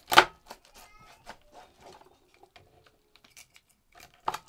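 Chef's knife cutting through the crisp crackling skin of oven-roasted pork belly: a loud crunch about a quarter second in, scattered small crackles, then more crunching near the end.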